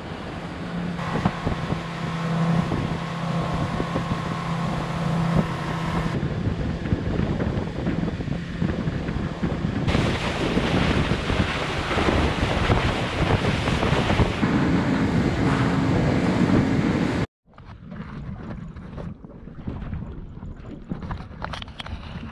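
Aluminium fishing boat running at speed under outboard power: a low motor drone with wind buffeting the microphone and spray rushing along the hull, the rush loudest in the second half. The sound cuts off abruptly near the end, giving way to quieter wind and lapping water with faint clicks.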